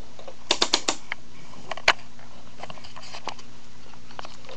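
Plastic toy fire truck clicking as it is handled: a quick run of four sharp clicks, then a single louder click about a second later, followed by faint scattered ticks.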